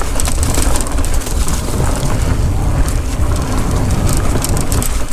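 Mountain bike riding fast along a dirt singletrack covered in dry leaves: steady low wind rumble on the camera microphone, with tyre noise and frequent rattling clicks from the bike.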